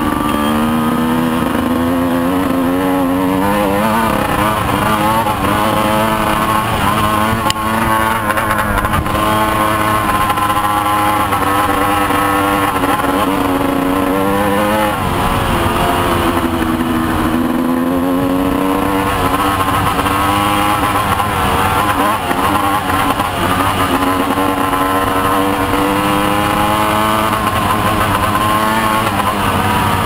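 Motorcycle engine running under way, its revs rising and falling slowly and repeatedly through the gears.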